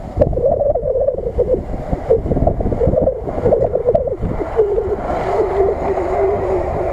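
Lada Niva's engine running as the 4x4 crawls down a steep dirt slope, its note wavering up and down and settling a little lower about four and a half seconds in.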